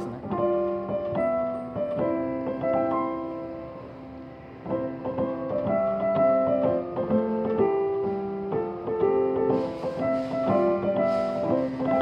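Grand-style digital piano played with both hands: a melody over chords from a railway chime tune, easing off briefly about four seconds in and then picking up again.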